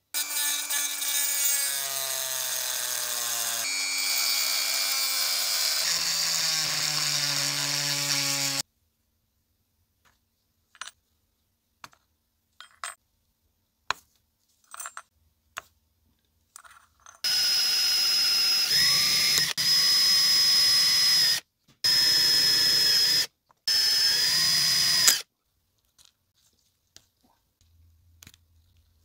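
A small handheld rotary tool whining in four bursts of about two seconds each, its pitch dipping as the bit bites into metal while drilling out copper rivets from a lantern clamp. Before that comes a loud run of held tones that step in pitch, then a stretch of light clicks.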